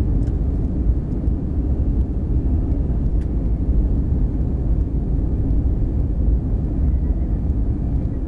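Steady low rumble of engine and airflow noise inside the cabin of an Airbus A320-family airliner on approach, with a faint tick about a quarter second in and another about three seconds in.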